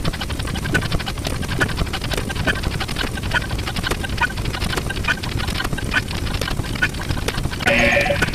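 A dense, continuous jumble of many overlapping sound effects, with short blips and clicks packed tightly over a low rumble.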